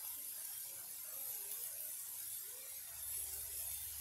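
Faint, soft handling sounds of ground beef being pressed and shaped into a patty by hand, over a quiet steady hiss; a low hum comes in about three seconds in.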